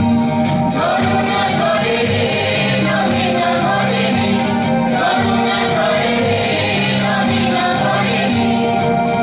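A song with singing over instrumental accompaniment and a steady percussive beat.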